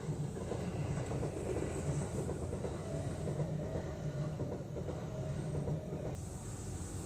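A Kintetsu electric train running past on the Osaka Line: a steady rumble of wheels on the rails, with a faint hum held through the middle of the pass.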